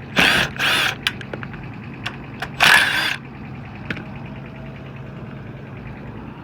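Steady low hum around a rooftop HVAC unit, broken in the first three seconds by three short, loud, rasping bursts and several sharp clicks from hands-on work at the unit.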